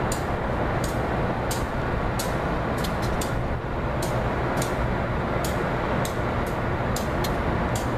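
Amtrak GP15D and GP38-3 diesel locomotives running as they move slowly through the rail yard: a steady low engine rumble, with sharp light clicks one to three times a second.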